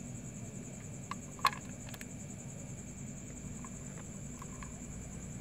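Quiet night-time background: a steady high-pitched whine or trill over a low hum, with faint scattered ticks and one sharp click about a second and a half in.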